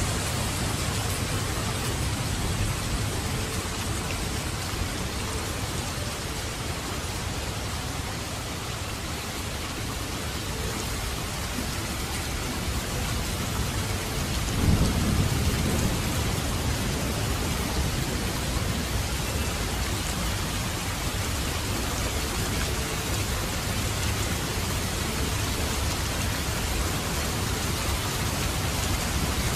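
Steady rain with a low rumble of thunder about halfway through.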